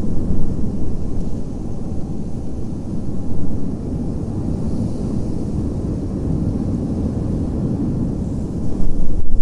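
Wind blowing, a deep steady rush that swells in gusts, strongest near the start and again near the end.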